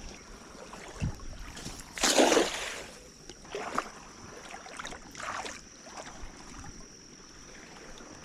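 Water splashing: a thump about a second in, a loud splash about two seconds in, then two smaller splashes, with a faint steady high-pitched whine behind.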